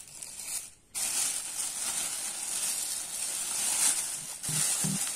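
Thin plastic carrier bag rustling and crinkling as it is handled and pulled open, steady from about a second in. Music with a beat comes in near the end.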